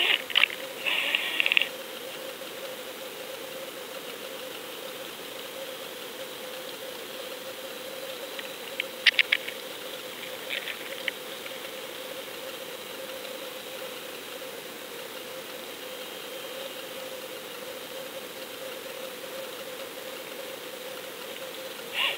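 Underwater noise picked up through a GoFish camera's housing as it hangs on the fishing line: a steady hiss with a faint steady hum. A quick cluster of sharp clicks comes about nine seconds in, and a couple more follow about a second later.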